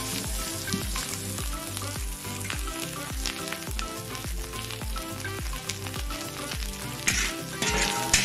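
Dried shrimp sizzling as they are stir-fried in oil in a pan, with louder bursts near the end as they are stirred. Background music with a steady beat plays over it.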